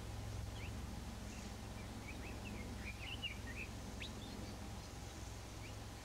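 Small songbird giving a quick run of short, high chirps in the middle, with a few single chirps before and after, over a steady low background hum.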